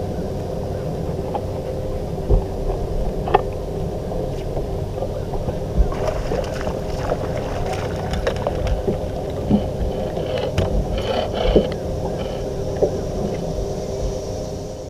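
Bass boat's electric trolling motor humming steadily over water noise against the hull, with a few sharp knocks on the boat.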